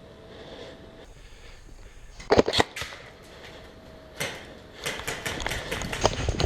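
Airsoft guns firing: a short cluster of sharp shots about two seconds in, then a longer run of rapid shots and clatter near the end.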